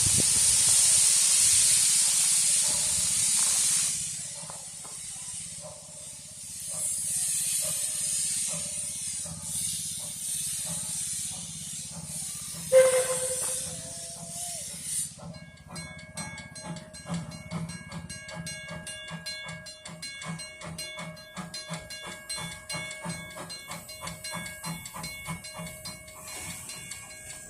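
Puffing Billy steam train: the locomotive hisses loudly, then gives weaker bursts of steam, with one short whistle toot about halfway through. After that the carriages roll along with a steady, rhythmic clicking of wheels on the rails and a thin, steady ringing over it.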